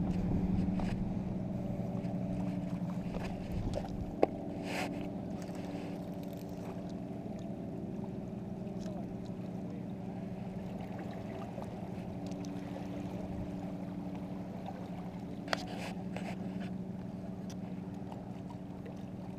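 A steady, even engine hum throughout, with two sharp clicks, one about four seconds in and one about fifteen seconds in.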